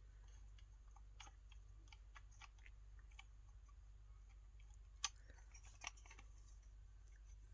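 Near silence with a low hum and faint scattered clicks of the blade and clip of an oscillating multi-tool being handled as the blade is fitted back on, with two sharper clicks about five and six seconds in.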